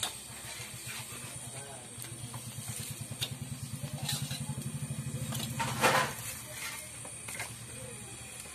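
A small motorcycle engine running with a fast low throb that builds over a few seconds and stops about six seconds in. Several sharp metal clinks of a steel mug and spatula at the griddle, with a louder clatter just before the engine stops.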